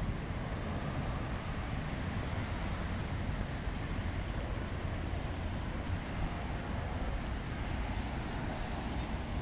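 Steady outdoor city ambience with a low, even rumble of road traffic and no distinct events.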